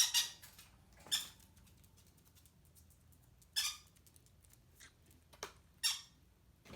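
Green-cheeked conure giving a handful of short, harsh chirps and squawks, spaced a second or more apart.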